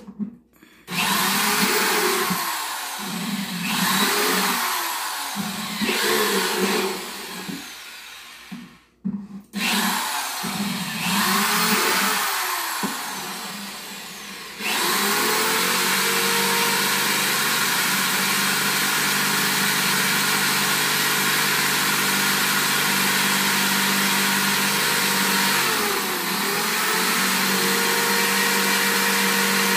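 Electric drill boring holes through a plastic plant pot: several short bursts, each speeding up and winding down, then a long steady run at full speed with one brief dip a few seconds before the end.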